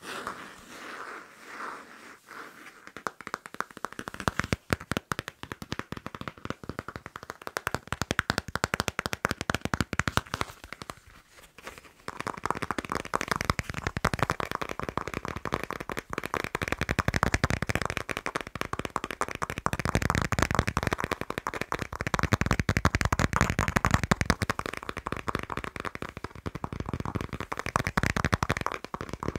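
Fast tapping and scratching on a passport. It starts with a few slow scratching strokes, then turns to rapid clicking taps. After a brief lull near the middle it comes back denser, with scratching mixed into the taps.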